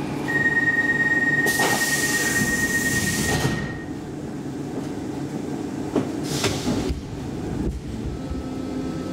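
Stockholm metro C14 car standing at a platform over a steady hum: a single held warning beep for about three and a half seconds with a burst of air hiss, the sound of the doors closing, then a second short hiss about six seconds in.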